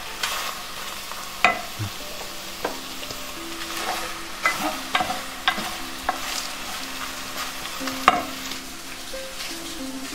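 Pain perdu (stale bread cubes) frying in a pan with a steady sizzle. A utensil stirs the pieces and clinks sharply against the pan about eight times.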